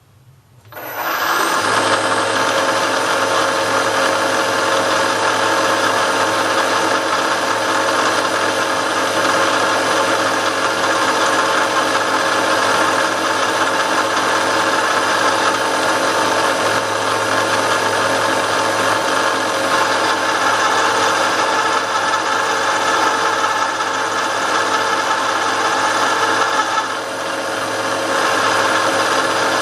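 Milling machine starting about a second in and running steadily as its cutter machines the end of a stainless steel vise jaw; the sound eases briefly near the end, then returns.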